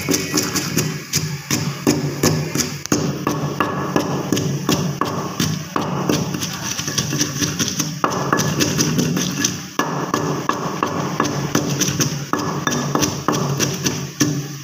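Wooden pestle pounding green chillies into a paste in a stone mortar: a steady run of thuds, about three a second.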